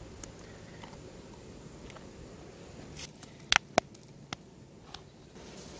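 A quick cluster of four sharp, light clicks and taps about three and a half seconds in, as wet red chilies are dropped into a clay mortar on top of garlic cloves.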